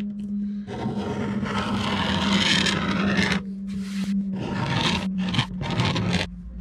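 A sharpened flat screwdriver scraped along the bottom of a teak deck seam, cleaning old caulking residue out of the groove. One long scrape of about three seconds, then a string of shorter strokes.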